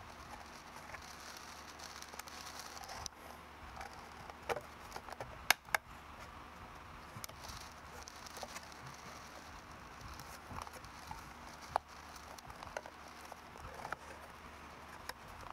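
ABS plastic robot chassis panels being handled and pressed together by hand: faint rustling with scattered clicks and knocks. The sharpest is a pair of clicks about five and a half seconds in.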